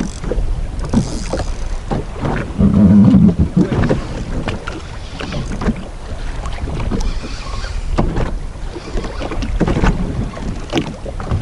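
Wind buffeting the microphone over water moving around a jet ski at sea, with a louder gust of buffeting about three seconds in.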